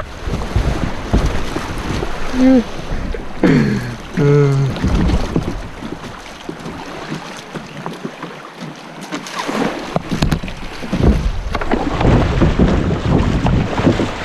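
Creek water rushing over small rapids around a kayak being paddled upstream, with paddle splashes and wind buffeting the microphone. A few short vocal sounds between about two and five seconds in, and heavier low buffeting near the end.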